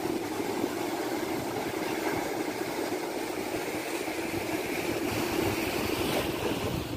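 Small sea waves breaking and washing onto a sandy, rocky shore: a steady rush of surf.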